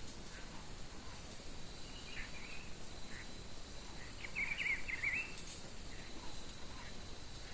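Wild birds calling: short chirps, then a louder warbling phrase about halfway through. Behind them runs a steady high-pitched insect drone.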